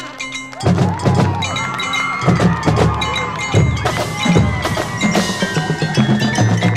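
Marching percussion section playing: tenor drums, snare and bass drums in a loud rhythmic passage, with ringing mallet percussion above, coming in strongly about half a second in after a brief lull.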